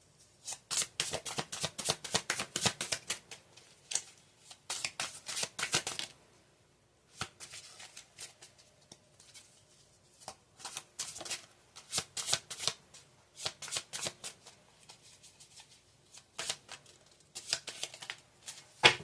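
Tarot cards being shuffled by hand: runs of quick, sharp card clicks in several bursts, with short pauses between them.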